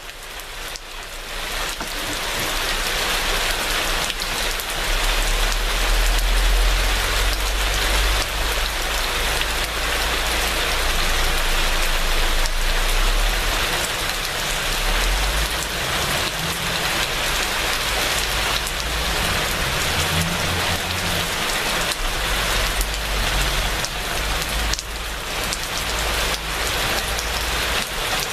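Steady rainfall, fading in over the first couple of seconds, with low rumbles of distant thunder underneath at times.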